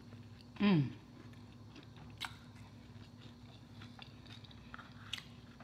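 A person eating a cheeseburger slider with mouth sounds of chewing and small lip clicks, and a short falling "mmm" of enjoyment about half a second in, the loudest sound.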